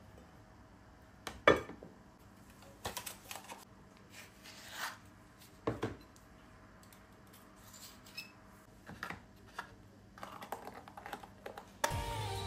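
Scattered knocks, clinks and scrapes of a knife and spoon against a ceramic bowl and butter dish as butter and cream cheese are added to boiled potatoes. The loudest knock comes about a second and a half in. Near the end a steady sound starts.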